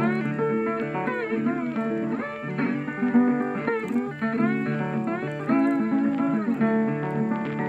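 Background music: a guitar playing a run of plucked notes, many of them bending in pitch.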